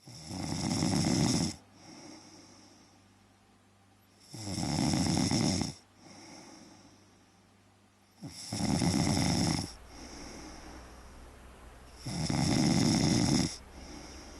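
A young girl snoring: four loud snores about four seconds apart, each lasting about a second and a half, with quieter breaths between them.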